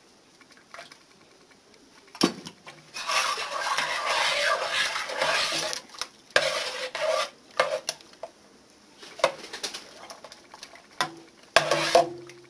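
A metal spoon stirring chicken stock in a stainless steel pressure cooker pot, scraping and clinking against the pot. The scraping is heaviest for a few seconds in the middle, with separate knocks and a louder clink that rings briefly near the end.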